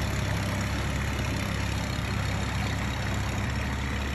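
Steady low hum of an engine running at an even speed.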